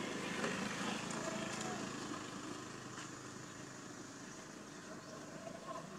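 Steady outdoor background noise with faint distant voices and a few light clicks.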